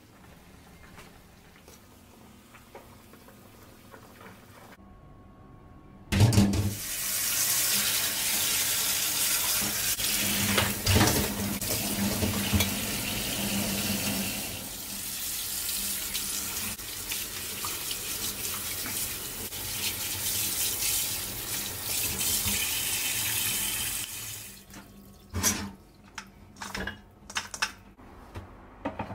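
About six seconds in, a kitchen tap starts running onto parboiled pork ribs in a stainless steel colander in the sink, a steady rush with a few knocks as the ribs are moved. The water stops near the end, and a few sharp knocks follow.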